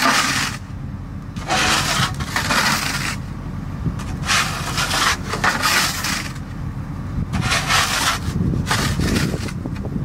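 A shovel scraping snow out of the steel bucket of a Case wheel loader in about six separate strokes, each a rough scrape. Under them the loader's diesel engine idles with a steady low rumble.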